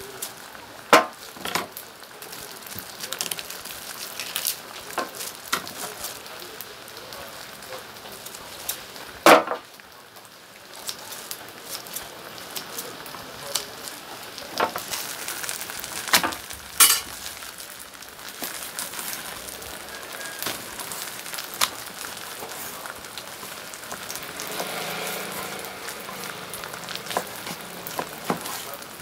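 Steady sizzle of frying, with sharp clicks and snips of kitchen scissors cutting braised pork and a knife tapping a wooden cutting board; the loudest clicks come about a second in and about nine seconds in.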